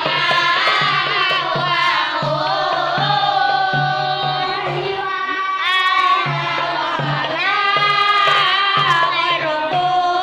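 A group of boys singing a song together, accompanied by a darbuka hand drum keeping a steady beat. The drum drops out briefly about halfway through, then comes back in.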